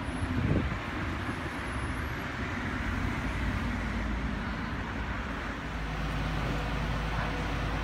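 Diesel engines of parked fire engines idling, a steady low rumble with a haze of street noise. After a change about six seconds in it becomes an even low hum with a faint steady tone.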